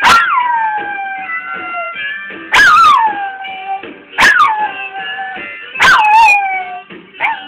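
Chihuahua howling along to 1950s music: five high yowls about a second and a half apart, each starting with a sharp yip and sliding down in pitch, over the song.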